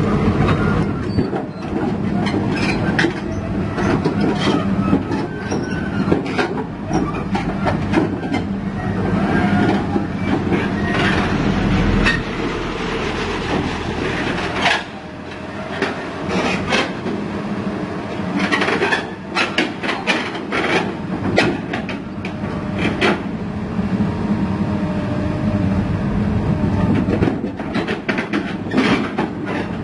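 Komatsu PC200 crawler excavator travelling, its steel crawler tracks clanking and knocking irregularly over a steady diesel engine drone.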